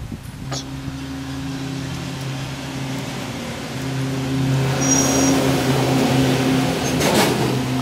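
An engine runs with a steady low hum, growing louder about four seconds in, with a short burst of noise near the end.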